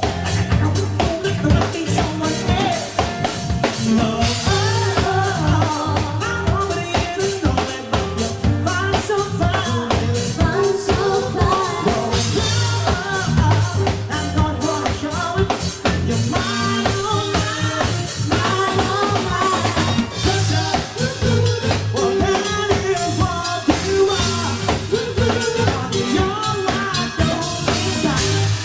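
Dance music with a drum kit beat, bass and a singing voice carrying the melody, played without a break.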